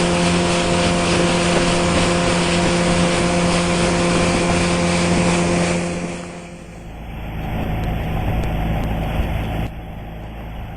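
Motorboat engine running steadily at speed over rushing water and wind noise. About six seconds in it eases off: the higher hum and rush fade, leaving a lower rumble.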